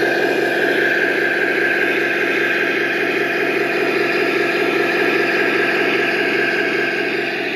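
Tamiya 1/16 King Tiger RC model tank running steadily as it drives through grass. It gives a continuous mechanical drone and whine that eases slightly near the end.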